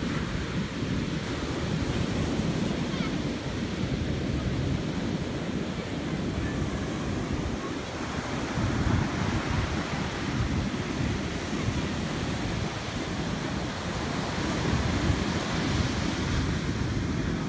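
Pacific Ocean surf breaking and washing up a sandy beach in a continuous rush that swells and eases slightly, with wind rumbling on the microphone.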